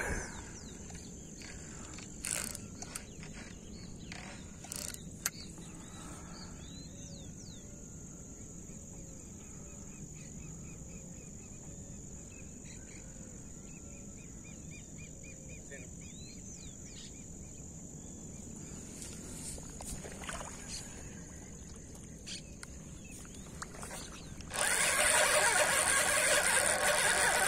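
Quiet lagoon-side ambience with a few faint bird chirps, then about 25 seconds in a loud, steady whirring starts and runs for several seconds: a fishing reel being cranked fast to bring in a hooked tararira.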